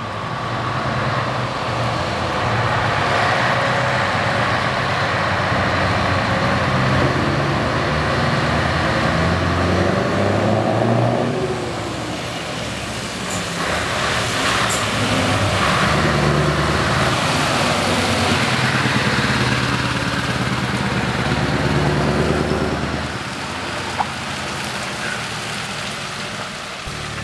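Scania 164L 480's V8 diesel engine pulling a loaded trailer away and driving past. The engine note rises and eases off twice, with a brief hiss about halfway through.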